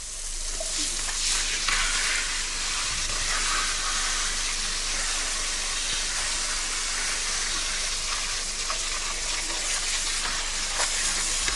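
Garden hose spraying water onto oil palm fruits in a plastic basket as they are washed, a steady hissing spatter.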